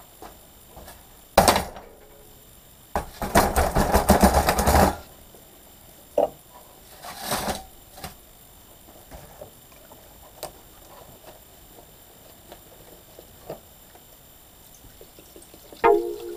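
Heavy steel parts, a steel bowl and large roller bearings, set down and shifted on a metal-topped workbench: a sharp clank, then a longer rattling clatter, followed by softer knocks, a scrape and a few small clicks. Music comes in at the very end.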